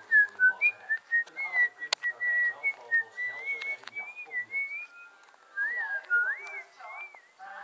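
A person whistling a slow, wavering tune, with a few sharp handling clicks, one loud one about two seconds in.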